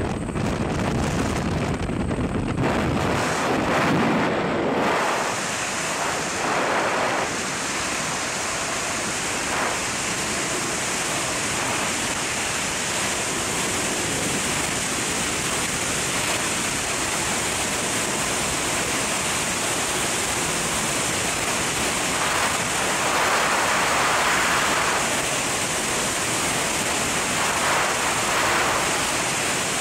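Aircraft engine and propeller at the open jump door for the first few seconds, then the steady rush of freefall wind over the microphone from about five seconds in.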